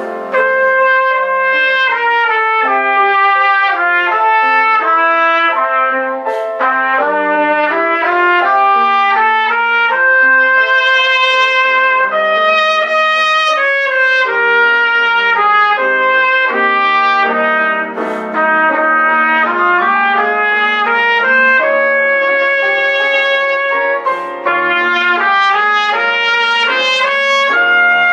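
Trumpet playing a flowing melody of held and moving notes, with a few short breaks between phrases.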